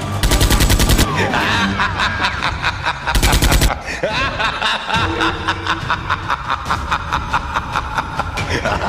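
Two short bursts of rapid machine-gun fire, one at the start and one about three seconds in, over background music.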